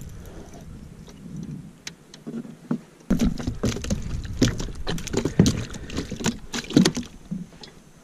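A run of quick knocks and taps on a plastic fishing kayak's hull and deck as a small, just-caught bass and the fishing gear are handled. The knocks come thickest from about three seconds in and thin out near the end.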